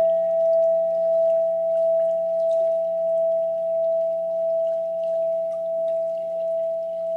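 A meditation bell ringing on after a single strike: a steady tone slowly dying away, its loudness swelling and fading about one and a half times a second.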